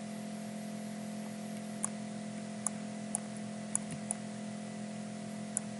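Computer mouse clicking: six short, sharp clicks at uneven intervals over a steady low hum.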